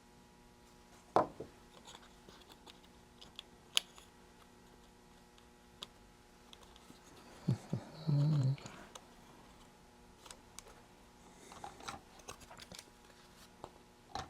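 Scattered clicks, taps and knocks of small parts and hand tools being handled on an electronics workbench, with a louder knock about a second in and a short low hum about eight seconds in.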